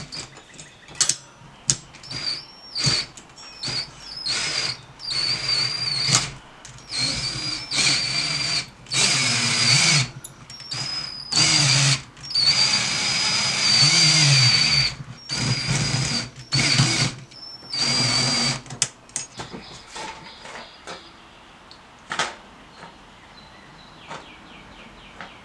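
Electric drill run in repeated short trigger bursts, its motor whine starting and stopping over and over and dipping in pitch under load, with the longest run in the middle. The bursts stop about three quarters of the way through, followed by one knock.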